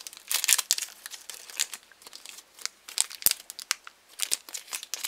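Foil Pokémon TCG booster pack crinkling and crackling in irregular snaps as it is gripped and torn open by hand.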